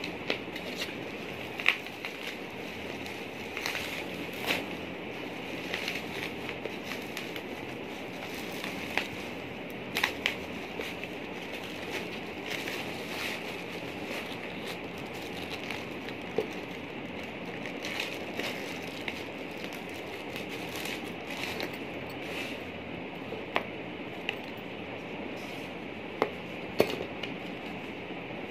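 Plastic packaging and bubble wrap being handled and pulled open, crinkling and crackling with irregular sharp snaps over a steady hiss.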